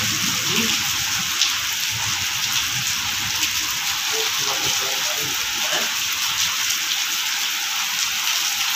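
Heavy rain falling on wet paving tiles, a steady even hiss.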